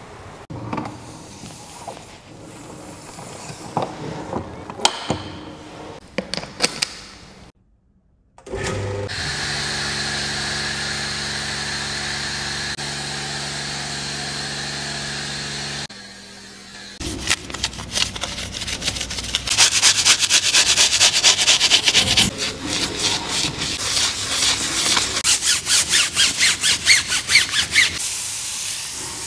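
A microfiber towel rubs and squeaks on a chrome gear knob. After a second of silence comes the steady hum of a pressure-washer motor with a foam cannon hissing, which cuts off suddenly. Then a hose spray nozzle's water hisses and spatters on a tyre and wheel, rapidly fluttering.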